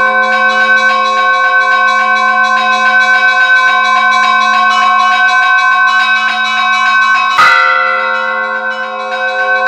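Church bells ringing a peal: small bells struck in a quick, even rhythm over the steady ringing of larger bells, with one sharp, louder strike about seven seconds in.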